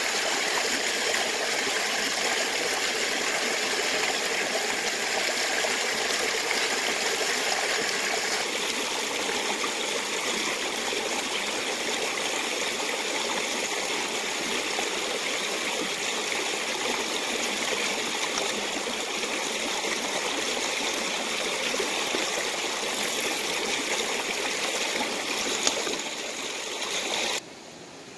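Steady rush and trickle of water with no pauses. It cuts off abruptly near the end, leaving a much quieter hiss.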